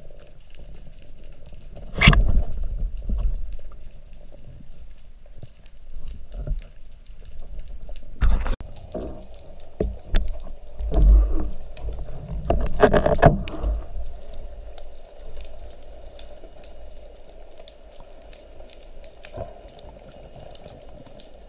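Water noise heard underwater: a steady muffled rushing with bubbling, and several louder deep swells of bubbles and water movement in the first fourteen seconds, quieter after that.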